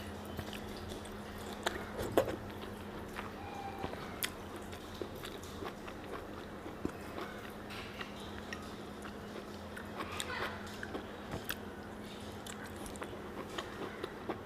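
Close-up mouth sounds of someone biting and chewing ripe Himsagar mango: scattered wet smacks and clicks, the loudest about two seconds in, over a faint steady hum.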